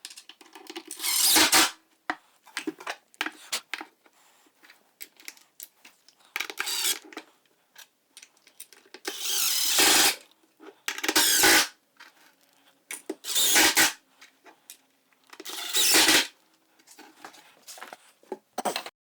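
Impact driver running in about six short bursts, each under a second, driving fasteners, with small clicks and rattles of handling between the bursts.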